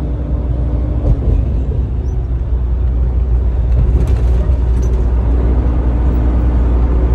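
Steady low rumble of a Volvo semi-truck driving at highway speed, engine and road noise heard from inside the cab.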